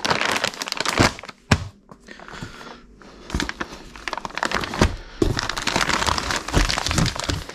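Large plastic mass-gainer bags crinkling and rustling as they are handled, with a few sharp knocks and crackles along the way.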